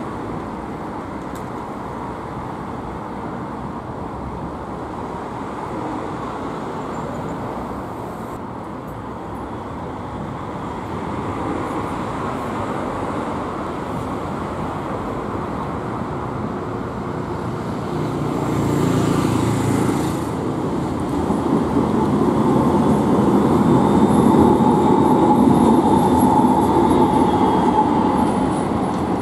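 Street traffic with an RET Alstom Citadis tram approaching and passing: a continuous wash of cars and tram running, with a brief surge of noise partway through. It is loudest in the last few seconds as a tram goes by, with a steady whine over the rumble.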